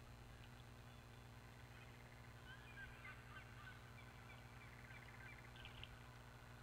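Faint bird calls, a scatter of short chirps and little gliding notes, with a quick rattling series about five seconds in, over a steady low hum.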